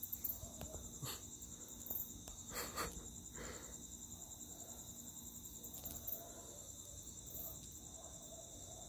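A steady, high trilling chorus of crickets at night, with a few short rustling noises about one second and three seconds in.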